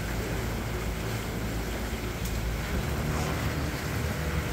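Boat under way: a steady low engine drone under a constant rush of wind and water.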